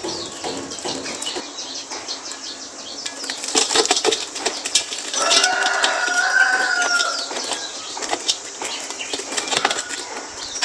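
Small birds chirping, with rustling and sharp clicks from about three and a half seconds in. About five seconds in comes a drawn-out bird call lasting about a second and a half, with a farmyard-fowl character.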